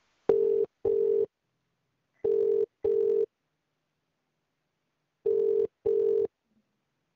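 Telephone ringback tone heard down the line while the call is being transferred to an agent: a UK-style double ring, two short pulses of a steady low tone, repeated three times about every three seconds.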